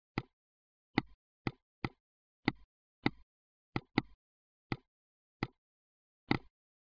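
Eleven sharp mouse clicks at uneven intervals, in dead silence otherwise, as the greyed-out Wi-Fi switch is clicked again and again and stays off.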